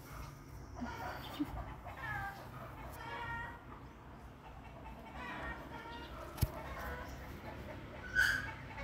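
Kitten meowing: several short calls through the first half and again a little past the middle. A sharp click comes about six seconds in, and a brief louder sound comes near the end.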